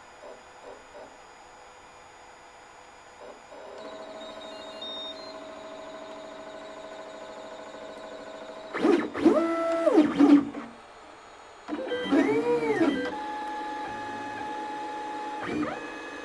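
3D printer's stepper motors whining as the print head moves: short even pulses at first, then a steady tone, with louder whines that rise and fall in pitch as the head speeds up and slows down, about halfway through and again near the end.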